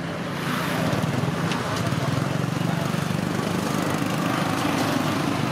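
Motorbike engine idling steadily, a low even hum.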